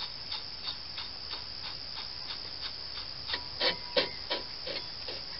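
A lug nut spun by hand onto a rear wheel stud of a 1984 Corvette, a run of soft metallic ticks about three a second. The ticks grow louder a few times between about three and a half and five seconds in.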